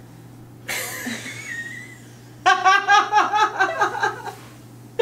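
Women laughing: a breathy giggle about a second in, then a burst of open, pulsing laughter from about two and a half seconds.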